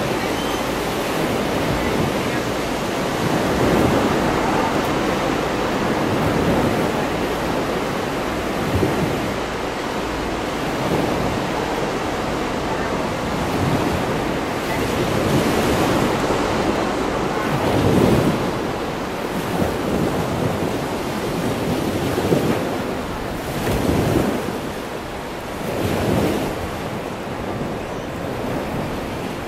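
Steady rush of ocean surf and wind, with gusts of wind hitting the microphone several times in the second half.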